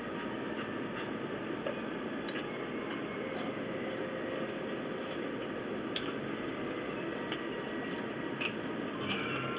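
Steady room hum with faint scattered clicks of someone eating chips by hand, and one sharper crunch about eight seconds in.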